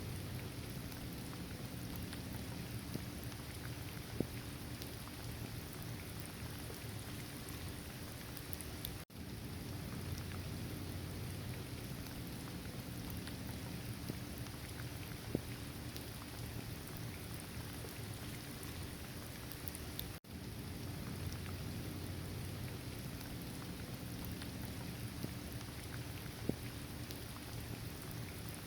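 Steady rain falling on a surface, with scattered individual drop ticks and a low rumble underneath. The sound cuts out for a split second twice, about a third and two thirds of the way through.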